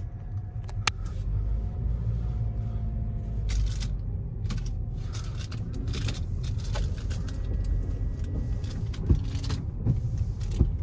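Car driving on a wet street, heard from inside the cabin: a steady low rumble of engine and tyres, with scattered sharp taps from a few seconds in. The windshield wipers are sweeping near the end.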